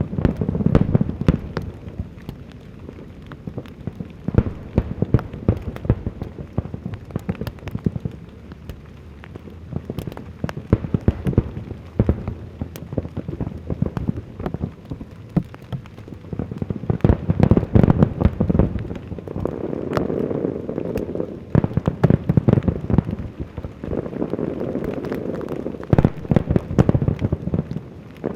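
Large aerial fireworks display: a dense, unbroken crackling of bursting shells over deep rumbling booms, which swell heavier near the start and again about seventeen seconds in.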